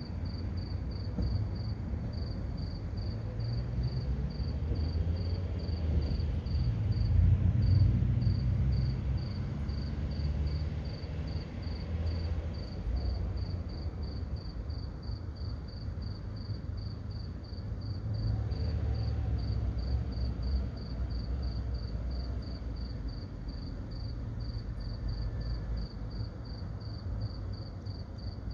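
Insect chirping steadily, a high thin pulse about three times a second without a break, over a low rumble that swells and fades twice.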